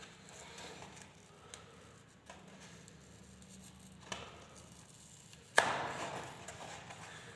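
Subwoofer's paper cone and surround being slowly pried and peeled off the metal frame by hand, faint scraping with a few small clicks, then one sudden louder crackle about five and a half seconds in as the glued edge gives. The cone is being stripped so the burnt voice coil can be replaced.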